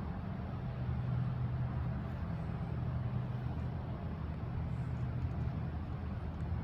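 Z71 pickup truck's engine running steadily, a low, even hum.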